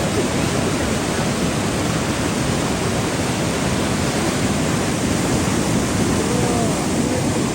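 Rushing river rapids, water pouring steadily over rocks.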